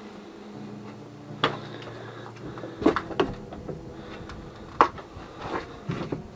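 Scattered sharp knocks and clatters, about four loud ones with smaller ticks between, over a steady low hum.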